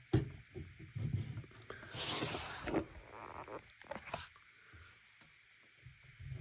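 Plastic action figures being moved and set down on a surface. A sharp click comes right at the start, then scattered light knocks, a brief scraping rustle about two seconds in, and a couple more clicks around four seconds.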